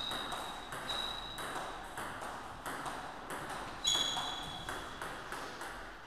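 Table tennis rally: the celluloid ball clicks back and forth off the bats and table about twice a second, with a few short high-pitched squeaks among the hits.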